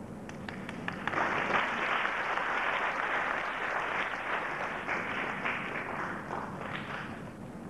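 Audience applauding, rising about a second in and dying away near the end.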